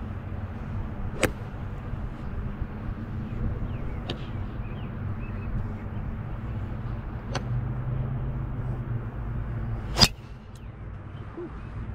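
A driver's clubhead strikes a teed golf ball with one loud, sharp crack about ten seconds in. Three fainter clicks come earlier, and a steady low rumble runs underneath.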